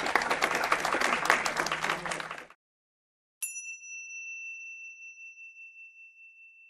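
Audience applause that cuts off abruptly. After a second of silence, a bell-like chime is struck once and rings out on one main tone, fading slowly with a slight waver.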